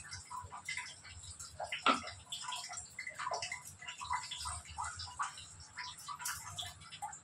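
Scattered light clicks and crackles, with one sharper click about two seconds in, as ghee is added over the layered biryani in its hot non-stick pan.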